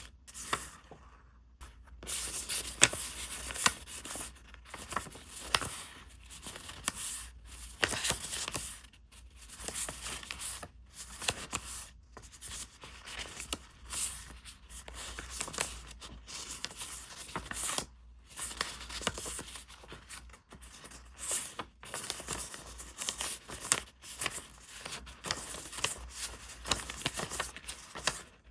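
Packaging being torn open and crinkled by hand in a long run of irregular rustling and tearing strokes with short pauses between them.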